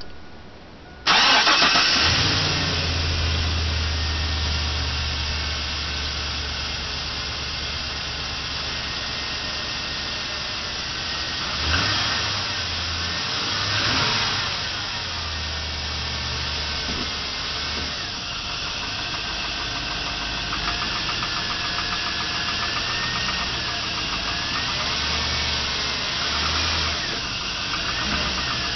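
A 1999 GMC Sierra pickup's engine is cold-started. It catches about a second in and settles into a steady run, with two brief swells in engine sound a little over halfway through. It runs with the start-up knock that the owner takes for piston slap.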